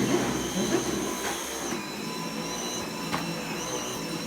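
A household vacuum cleaner running close by, with a steady motor whine that drops slightly in pitch a little under two seconds in and then wavers as it is pushed over the floor.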